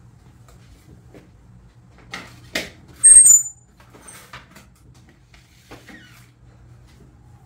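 Dishes knocking and scraping on a glass tabletop as a plate is set down, with one loud, brief, high-pitched squeal about three seconds in, followed by a few small clicks over a low steady hum.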